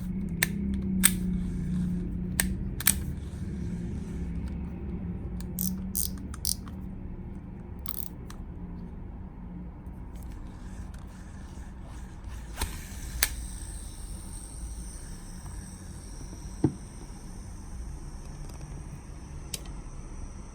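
Shimano 09 Calcutta Conquest 200DC baitcasting reel being worked by hand after an overhaul: a series of sharp mechanical clicks over a low steady hum, the hum stronger in the first few seconds.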